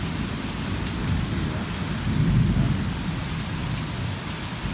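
Heavy rain falling steadily in a severe thunderstorm, with a low rumble of thunder swelling about halfway through.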